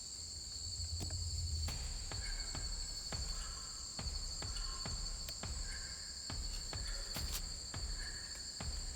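Insects chirring steadily on two high pitches, with scattered sharp clicks and a low rumble underneath.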